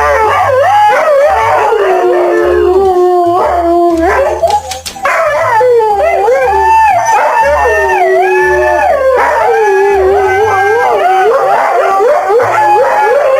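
A dog howling in long, wavering, pitched howls that rise and fall, breaking off briefly about four and a half seconds in before starting again.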